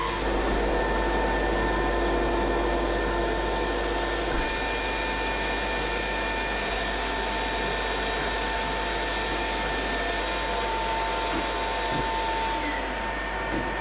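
Electric palm sander running steadily against a hardwood floor, a continuous motor whine over the rasp of the paper.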